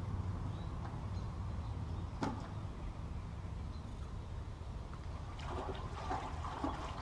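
A steady low rumble, with a single sharp knock about two seconds in and a patch of light clattering near the end as a fish is handled in a plastic bucket.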